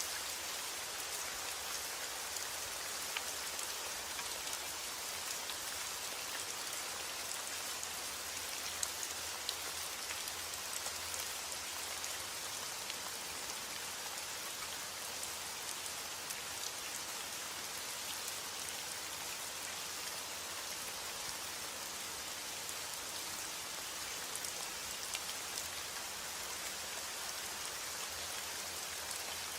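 Heavy rain falling steadily on a roof, an even hiss with a few sharper single drops standing out now and then.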